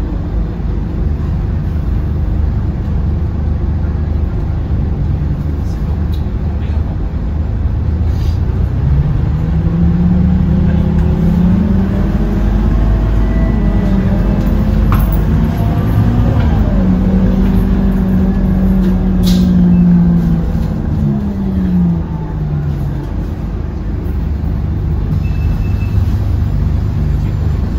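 Scania K230UB city bus under way: steady engine rumble, with a whining tone that rises as the bus pulls harder about a third of the way in, holds, then falls away a few seconds before the end as it eases off.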